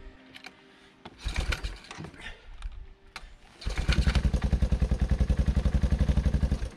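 Yamaha Moto 4 YFM200DX quad's single-cylinder four-stroke engine starting. After a few short bursts in the first seconds, it catches a little under four seconds in and settles into a steady, even idle.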